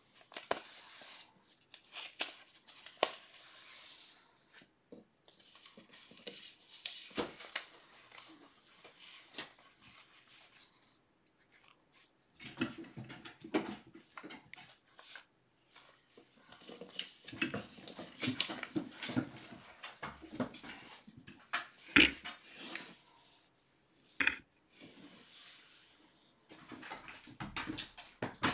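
Intermittent rustling with many light clicks and taps, in bursts of a few seconds separated by short pauses.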